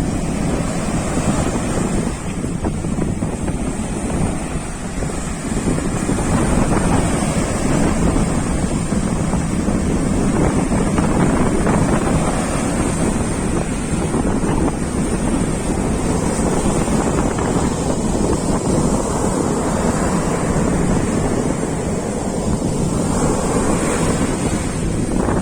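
Strong sea wind buffeting the microphone in a steady, loud rumble, with surf washing in underneath.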